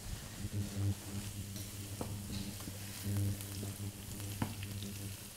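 Sliced mushrooms frying in a nonstick pan, stirred with a wooden spoon, with scattered short taps and scrapes of the spoon against the pan. A steady low hum runs underneath.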